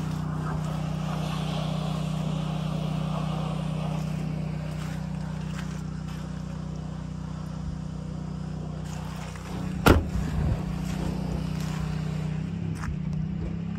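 2007 Chevrolet Silverado 1500 pickup idling steadily, with a single loud thump about ten seconds in that fits the truck's door being shut.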